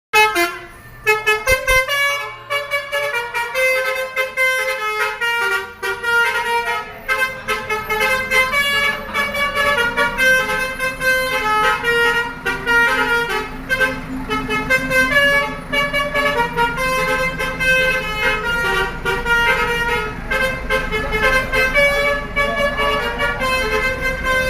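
Basuri bus horns, the Indonesian multi-tone "telolet" horns of two buses, playing a fast melody of short notes. A bus engine rumbles steadily underneath from about six seconds in.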